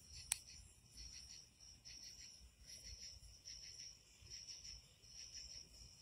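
Crickets chirping faintly, a high-pitched pulsing chorus that goes on without a break. A single sharp click sounds about a third of a second in.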